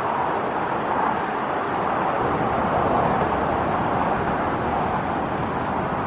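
Raging mountain river running high after heavy early-season snowfall: a steady, even rush of whitewater over rocks.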